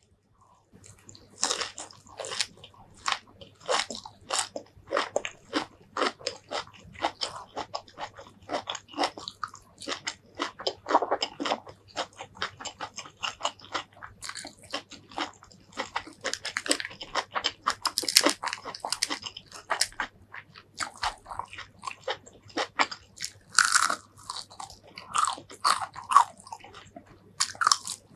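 Close-miked chewing and crunching of a person eating raw green vegetables and rice with Thai shrimp paste chilli sauce (nam prik kapi). It starts about a second in, with a faint steady hum underneath.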